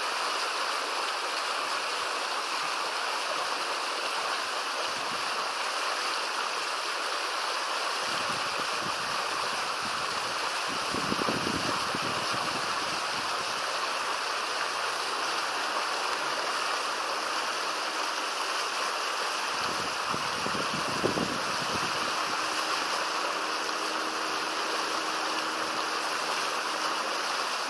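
Shallow river water flowing steadily, a constant rushing hiss. Two brief low thumps break in, about eleven seconds in and again about twenty-one seconds in.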